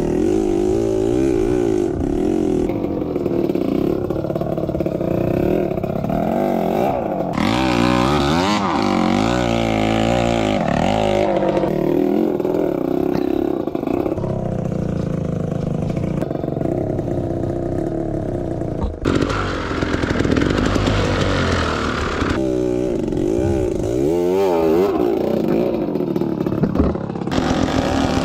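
Dirt bike engine revving up and down as it is ridden off-road, its pitch rising and falling over and over, with one sharp knock about two-thirds of the way through.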